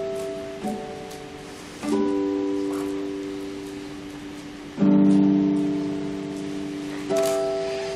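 Solo classical guitar playing a slow, sparse passage: a plucked note or chord every one to three seconds, each left to ring and fade. The loudest, a full chord, comes about five seconds in.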